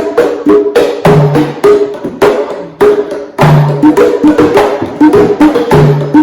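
Hand drums playing a quick, steady rhythm of sharp slaps and ringing open tones, with a deeper drum sounding a longer low note about every two seconds.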